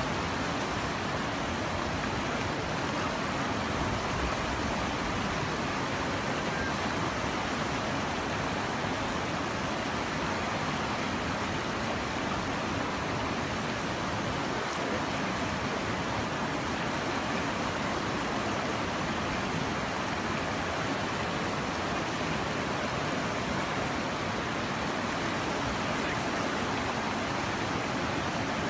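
Steady, even rushing noise with no separate events and no change in level.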